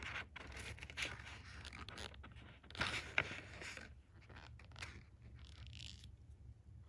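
Fingers handling and tugging monofilament fishing line: scratchy rustling and scraping with small clicks, loudest about three seconds in with one sharp click, over a faint low hum.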